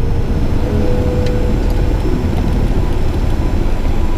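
Cockpit noise of a Cessna Citation V business jet rolling out after landing: a steady low rumble from its turbofan engines and airflow, with a faint hum that fades about halfway through.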